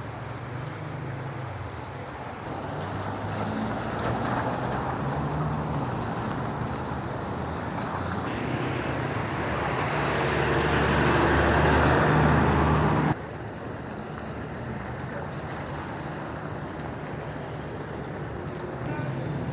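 Traffic on rain-wet city streets: tyre hiss and running engines. The sound builds to a city bus passing close by, then cuts off suddenly about two-thirds of the way through.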